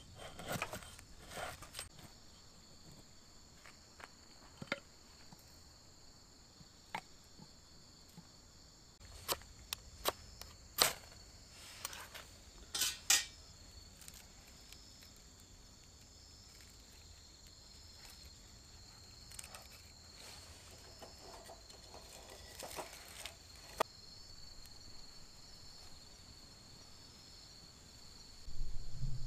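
Steady high-pitched chorus of insects, with scattered light clicks and knocks, most of them bunched in the middle.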